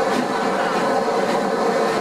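Steam-hauled passenger train behind a Bulleid West Country class Pacific locomotive, running along the line and heard from an open carriage window: a steady rush of wheel and running noise.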